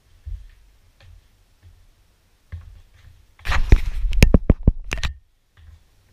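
Handling noise from an action camera being gripped and repositioned by hand: rubbing against the camera body and a rapid run of sharp knocks lasting about a second and a half, ending in a brief cut-out of the sound. Faint thumps of movement come before it.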